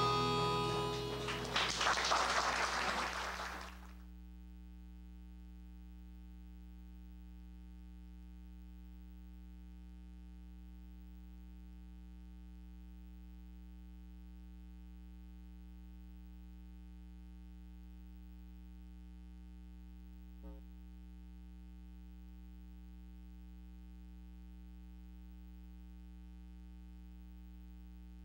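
Closing music ends about four seconds in, leaving a steady electrical hum with a faint click about twenty seconds in.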